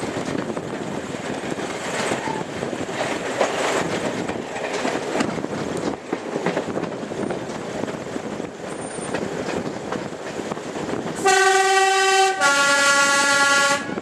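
Class 108 diesel multiple unit running along the line with a steady rumble of wheels and engine. About eleven seconds in, its two-tone horn sounds twice, a high note and then a lower note, each about a second long and much louder than the running noise.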